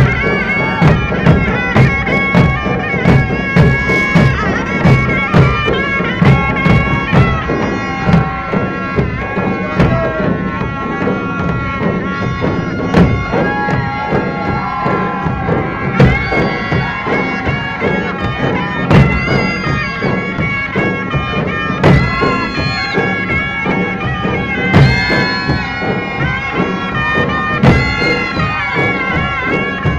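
Traditional band music: a loud reedy wind instrument plays a sustained melody over steady drum beats, about two a second, with heavier drum strokes every few seconds in the second half.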